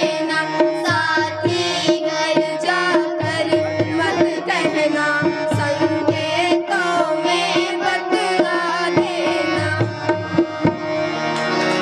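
Two girls singing a Hindi song together, accompanied by a harmonium and hand drums with a steady beat.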